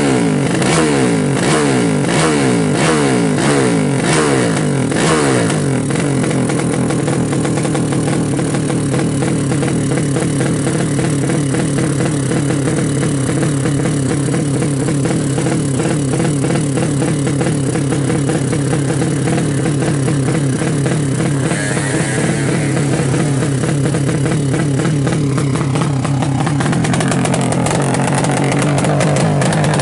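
Tuned 200cc single-cylinder drag-bike engine running, revved in quick repeated blips for the first several seconds, then held at a steady fast idle while its carburettor is being set up.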